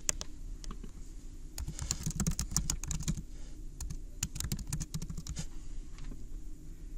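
Typing on a computer keyboard: a run of quick keystrokes, a few at first, densest through the middle, thinning out and stopping shortly before the end.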